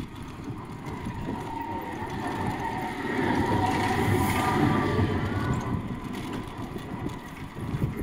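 A tram passing close by. Its low rumble grows from about three seconds in, is loudest around the middle, and eases off again, with thin steady tones ringing above it. Under it runs the steady noise of a bicycle riding along.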